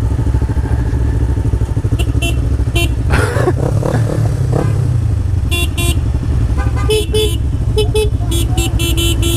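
Motorcycle engines idling in a stopped group, the nearest a Honda CBR with a Yoshimura aftermarket exhaust, with strings of short horn toots: a few around two seconds in, two near the middle, then a rapid series of quick taps in the last few seconds.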